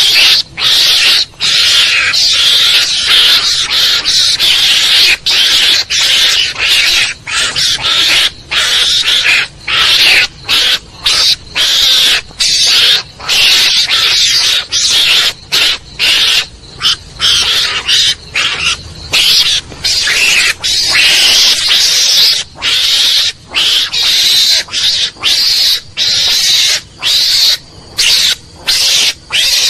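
Recorded mongoose (garangan) calls played as a hunting lure: loud, harsh, hissy calls in long runs, broken by short gaps about once or twice a second.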